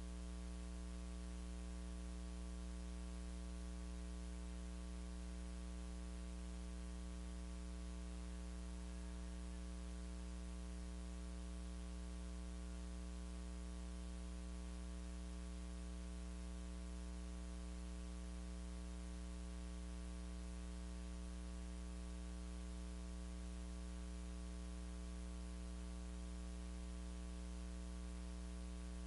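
Steady electrical mains hum with its overtones over constant hiss. No singing or instruments can be heard.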